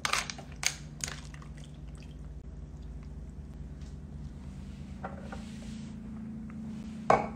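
A shaken cocktail and its ice being poured from a metal shaker into a tall glass, with a few sharp clinks of ice in the first second. A low steady hum runs underneath, and there is one sharp knock near the end.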